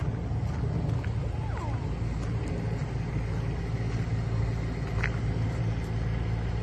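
Steady low engine rumble of a motor vehicle, with a few faint high chirps over it.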